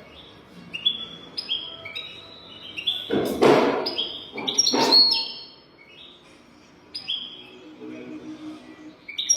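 European goldfinch singing: a run of quick, twittering chirps, many of them sliding down in pitch. Two short, louder rushes of noise come about three and a half and five seconds in.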